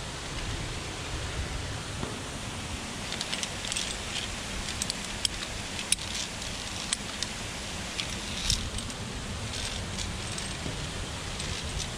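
Wind rumbling on the microphone, with scattered light metallic clinks of climbing gear (carabiners and harness hardware on the via ferrata's steel cable).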